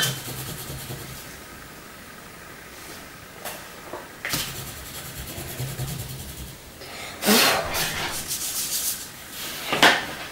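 Paper and card rubbing and scraping against a table as craft cut-outs are handled, with a few sharper scrapes or knocks, the loudest about seven seconds in.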